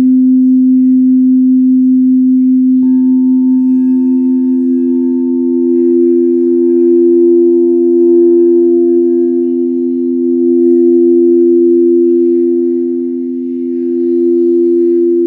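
Crystal singing bowls ringing in long, steady tones. One lower bowl sustains throughout, and about three seconds in a higher bowl, the heart-chakra bowl, joins it, the two notes swelling and wavering slowly together.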